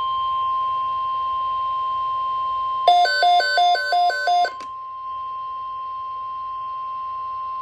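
NOAA Weather Radio 1050 Hz warning alarm tone: one steady, high, unbroken tone that comes before a severe thunderstorm watch message. About three seconds in, a short chime of about six alternating notes sounds over it for a second and a half.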